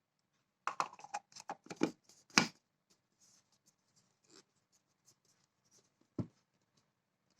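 Handling noises: a quick flurry of rustling clicks lasting about two seconds, then a few faint ticks and a single knock near the end.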